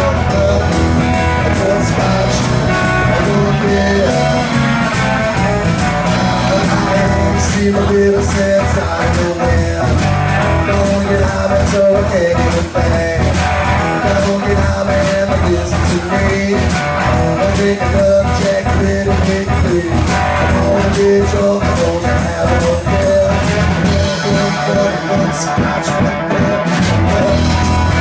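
Live blues-rock band playing: electric guitar, drum kit and bass guitar. The bass drops out for a few seconds near the end.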